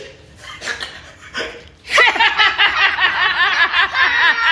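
A man's exaggerated comic crying. A few faint short sounds come first, then about two seconds in rapid, high-pitched sobbing pulses begin and go on, several a second.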